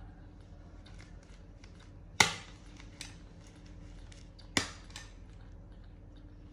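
Two sharp clicks, about two and a half seconds apart, over faint, irregular soft ticking.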